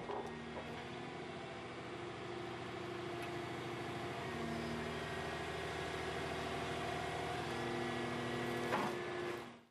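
A Volvo C-Series wheeled excavator's diesel engine running steadily as its hydraulics are worked, with several steady tones that shift in pitch about four and a half seconds in. There is a brief knock near the end before the sound fades out.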